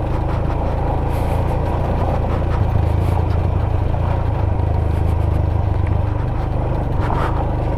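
Royal Enfield Himalayan's single-cylinder engine running steadily as the motorcycle rides on, with a continuous rushing road and wind noise.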